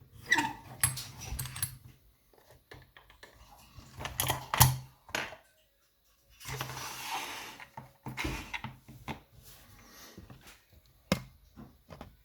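Clicks, knocks and scraping of a freshly picked pin-tumbler lock being handled as it is opened up for disassembly. The loudest knock comes about four and a half seconds in, a short rasping stretch around seven seconds, and a sharp click near the end.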